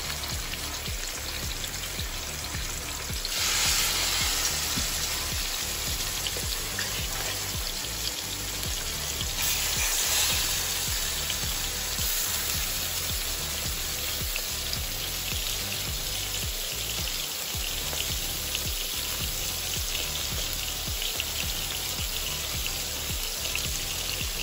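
Salmon pieces sizzling as they fry in coconut oil in a pan. The sizzle is a steady hiss that swells louder about three seconds in and again around ten seconds.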